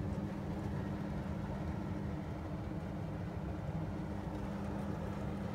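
A steady low hum with two constant pitches over a low rumble, unchanging throughout.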